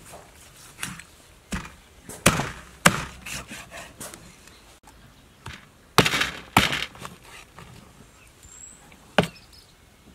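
Meat cleaver chopping through raw chicken and bone onto a thick wooden chopping board: about seven sharp, irregular chops, the loudest a little before three seconds in and at about six seconds.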